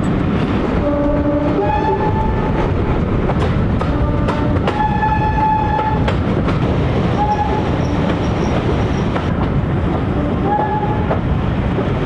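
A train's two-tone horn sounded several times, alternating a low note and a high note, the longest high note held for over a second near the middle. Underneath, the steady running rumble of the coach with the clickety-clack of wheels over rail joints.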